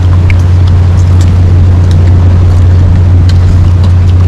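A loud, steady low hum, like a motor running without change, with a few faint short clicks over it.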